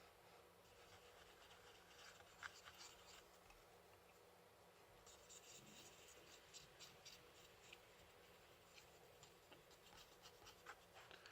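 Near silence with faint scratching and scattered light clicks of small parts being handled on a bench.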